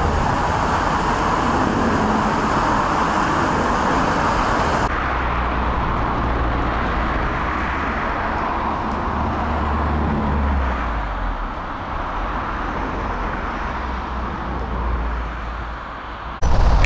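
Steady road vehicle noise, a low rumble under a hiss. The top of the hiss drops away suddenly about five seconds in, and the sound changes abruptly again near the end.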